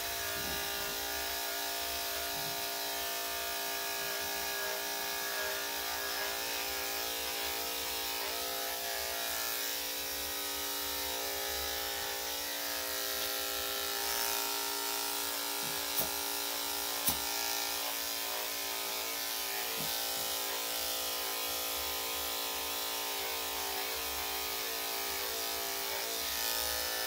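Corded electric dog clippers fitted with a #10 blade running steadily, a constant even hum, as they shave a dog's coat. Two brief clicks sound just past the middle.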